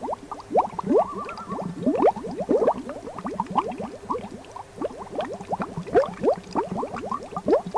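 Bubbling-water sound effect: a dense, continuous stream of bubbles, each a short rising blip.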